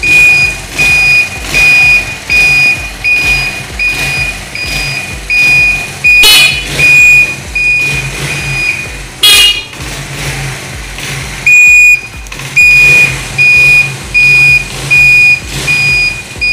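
Motorcycle indicator beeper sounding in a high steady tone, about two beeps a second, on a Honda CD70 whose electrics run off a capacitor pack in place of the battery. Two short horn blasts come about six and nine seconds in, and the beeping pauses for a couple of seconds after the second.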